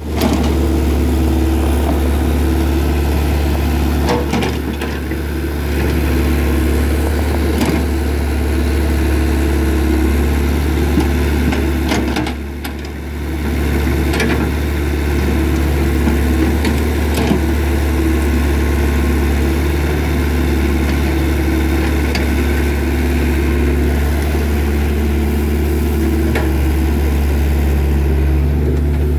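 Mini excavator's diesel engine running steadily close by as the machine digs and pushes dirt, with a few sharp knocks from the bucket and the engine easing off briefly twice.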